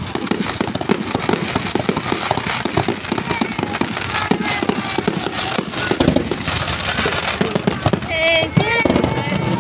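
Fireworks going off in a dense, rapid string of pops and crackles, with people's voices joining near the end.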